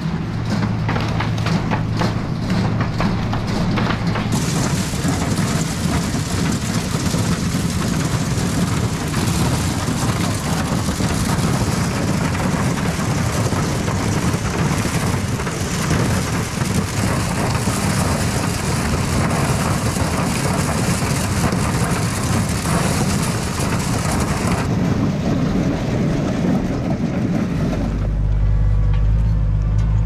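New Idea corn picker on an International 686 tractor running: a dense, steady rattle of ear corn tumbling over the husking bed and elevator, over the tractor's engine. Near the end the rattle stops and a lower, steadier engine sound is left.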